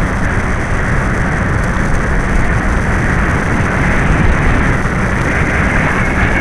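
Loud, steady rush of wind over the onboard camera's microphone on an FMS 1280 radio-controlled trainer plane in flight, mixed with the plane's electric motor and propeller.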